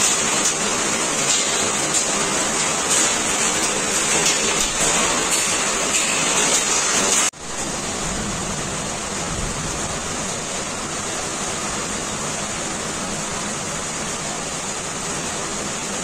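Heavy downpour of rain and hail, a dense steady hiss of water hitting the road with runoff rushing along a flooded roadside ditch. About seven seconds in it cuts off abruptly and resumes as a slightly softer, steadier rain falling on the street and a parked car.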